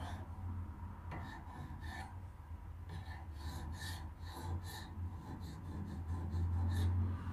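Soft, irregular rubbing and handling noises from hands working a guided knife-sharpening jig, mixed with breathing close to the microphone. A steady low hum runs underneath.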